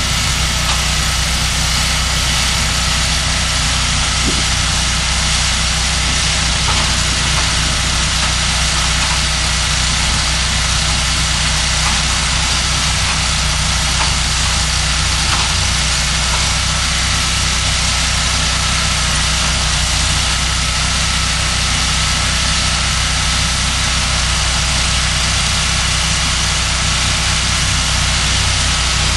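Portable band sawmill's engine running at a steady speed, an even, unbroken drone with a steady hiss over it and a few faint clicks.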